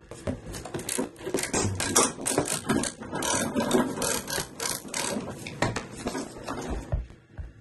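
Socket ratchet clicking in quick, irregular runs with the rattle of the tool being handled, as a 17 mm engine mount bolt is worked loose through a U-joint long extension. The clicking thins out shortly before the end.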